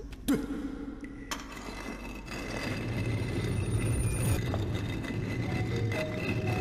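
Drama soundtrack: a sharp click about a second in, then a low rumble that grows louder as quiet, sustained music tones come in.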